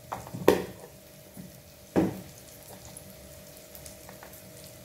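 Chicken pieces, onion and garlic frying gently in oil in a non-stick wok, under a faint steady hum. Two sharp knocks, about a second and a half apart, stand out above the frying.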